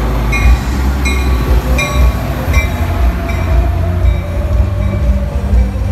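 Metra diesel commuter train passing close by: the locomotive and bilevel coaches run past with a loud, deep, steady rumble of engine and wheels.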